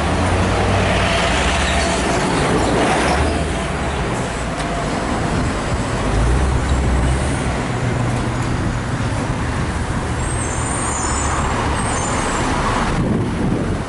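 Road traffic running past, with a bus engine close by, loudest about six seconds in.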